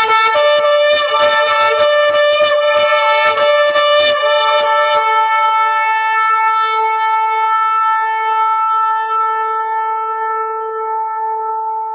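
Shofar (ram's-horn trumpet) sounding one long held blast. For about the first five seconds the note is rough and wavering, with a second, higher tone alongside it. The blast then settles into a single steady note that slowly fades.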